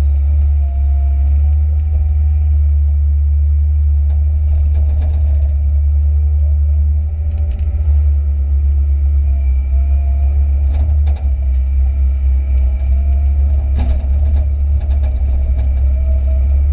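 Komatsu PC138UC excavator's diesel engine running steadily under load, heard from inside the cab as a heavy low drone. A higher whine wavers up and down over it, and there are a few brief knocks.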